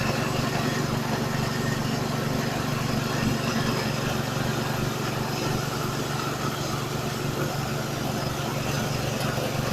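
Multifunction grass chopper machine running steadily while grinding rice husk: a constant engine hum with an even rushing noise of the milling above it.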